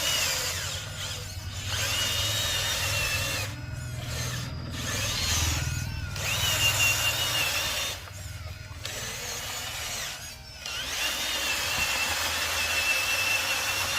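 Small electric motor and gearbox of a metal RC construction model whining in several runs of a couple of seconds, separated by short pauses; the whine rises in pitch as each run starts, then holds steady.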